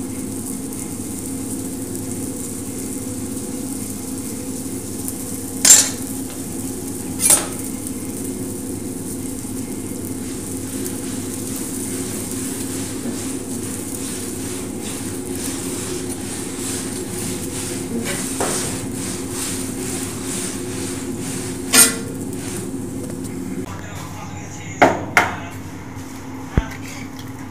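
Metal ladle knocking against a large iron tawa griddle three times, with a short metallic ring, over a steady low hum and hiss. Near the end come a few lighter clinks of a ceramic plate at a steel sink.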